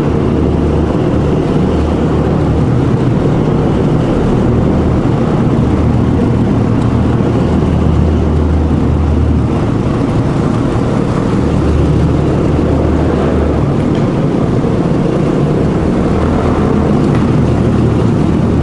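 Dual-sport motorcycle engine running steadily at cruising speed, with wind and road noise over an on-bike camera microphone.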